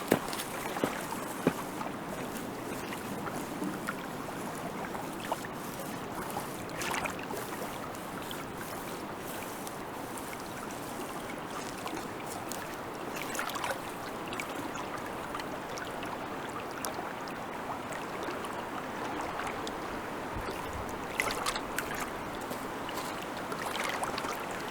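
Lake water lapping and sloshing steadily, with a few small splashes or knocks scattered through.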